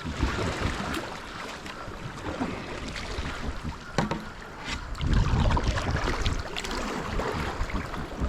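Water noise around a kayak on the river, with wind buffeting the microphone in a low rumble about five seconds in. There are a couple of light knocks, about a second in and again near the middle.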